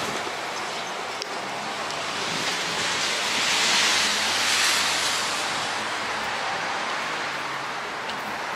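Steady city traffic noise under an elevated railway, swelling to a louder hiss about three to five seconds in.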